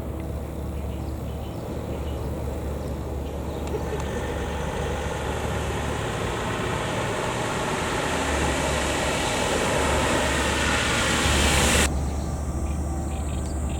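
A passing vehicle's noise swells steadily for several seconds, then cuts off abruptly about twelve seconds in. Faint insect chirping follows.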